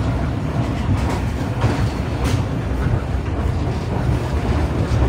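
Running noise of a Pakistan Railways passenger train heard from inside the coach: a steady low rumble of wheels on rails, with a couple of sharper clacks.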